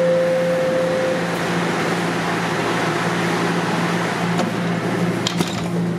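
TTC Toronto Rocket subway train accelerating out of a station, heard from inside the car: steady running noise over a low motor hum. A tone fades out about a second in, and a few sharp clicks come around five seconds in.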